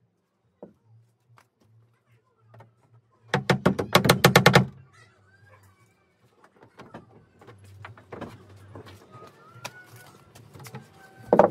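A quick run of about ten sharp hammer blows on the plywood speaker box, about three seconds in, with one more loud blow near the end.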